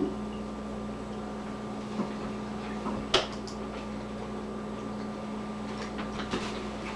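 A few light clicks and knocks of tableware, the clearest about three seconds in, over a steady low hum.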